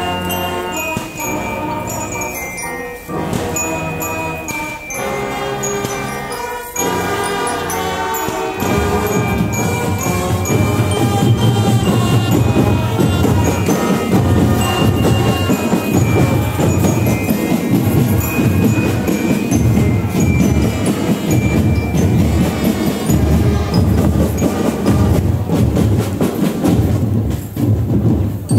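Marching band playing: for about the first eight seconds short bright phrases with brief gaps between them, bell-like mallet percussion among them, then about eight seconds in the music turns louder and denser, with a heavy, steady drumline under a melody.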